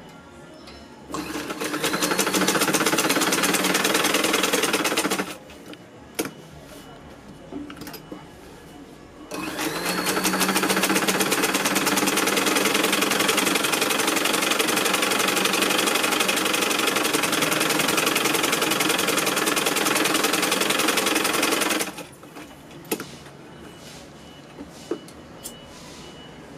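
Sewing machine stitching a seam in two runs: a short run of about four seconds, a pause with a few small clicks, then a longer run of about twelve seconds that starts with a rising whine as it picks up speed.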